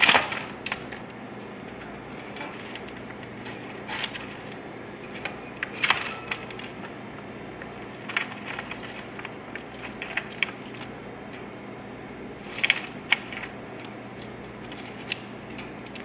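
Scattered clicks and knocks of cockatiels moving about in a wire cage, scrabbling on the bars and seed tray. The loudest comes at the very start, as a bird flaps its wings inside the cage. A steady low hum runs underneath.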